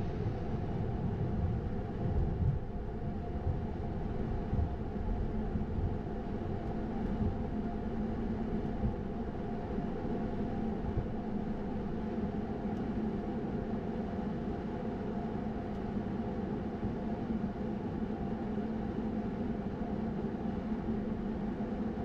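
Steady flight-deck noise of an Airbus A220-100 taxiing after landing: its Pratt & Whitney PW1500G geared turbofans hum at idle over a low rumble from the ground roll.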